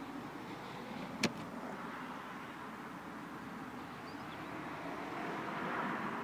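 Steady hum inside a car's cabin, with one sharp click a little over a second in and the hum swelling into a louder hiss near the end.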